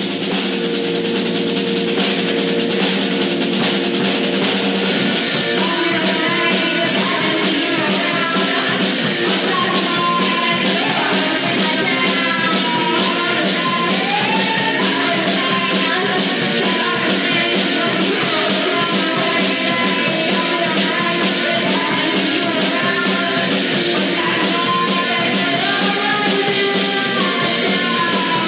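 Rock music soundtrack with a steady, quick drum beat. Held chords open it, and a melody line comes in about five seconds in.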